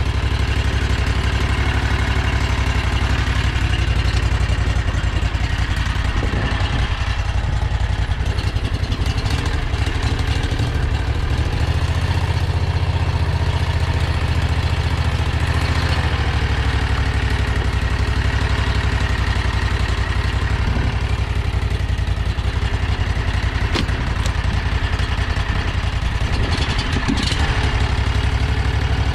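Predator 670 V-twin engine running steadily as the home-built golf-cart limo drives along.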